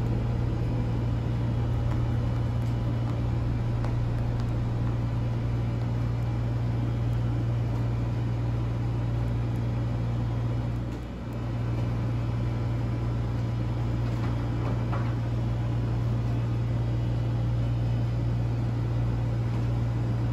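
A steady low hum, briefly dipping about eleven seconds in.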